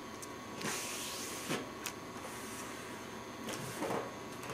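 Sheet of notebook paper rustling and sliding under the hands as it is folded and creased flat, a few soft swishes over a faint background hiss.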